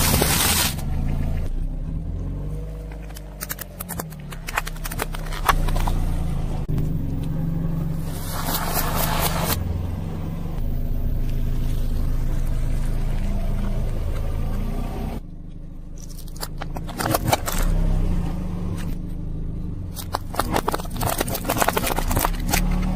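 A car tyre rolling slowly over a series of objects, crunching and cracking them in separate runs of sharp crackles, over the steady low hum of the car. Dry rice cakes crunch under the tyre early on, and plastic sunglasses crack under it near the end.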